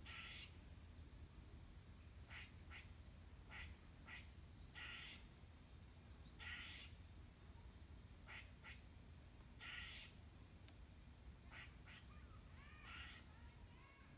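Faint woodland ambience: a steady high insect drone with short, faint chirps every second or two.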